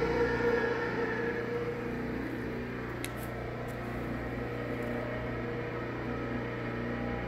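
Thermaflite screw processor running, its Baldor 1½ hp three-phase motor and drive giving a steady hum with a fixed tone. A short click about three seconds in.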